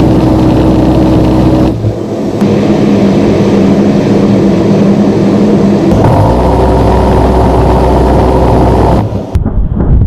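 In-cockpit noise of an A-10 Thunderbolt II in flight: a loud, steady drone of its twin TF34 turbofan engines and airflow, with a steady hum over a low rumble. Its pitch shifts about two seconds and six seconds in, and it cuts away near the end.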